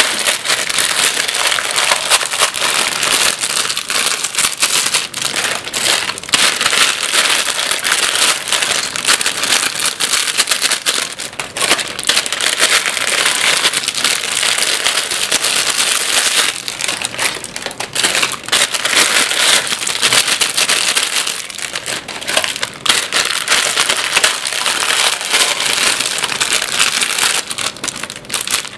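Plastic instant-noodle packets crinkling and crackling loudly as they are handled and the dry noodle blocks are pushed out, close to the microphone.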